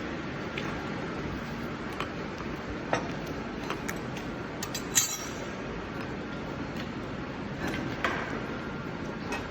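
Steady background noise with a few sharp metallic clinks, the loudest about five seconds in.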